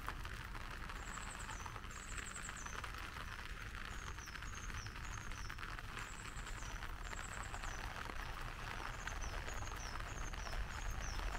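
A small bird calling repeatedly in short, high, falling notes, over a steady hiss of light rain.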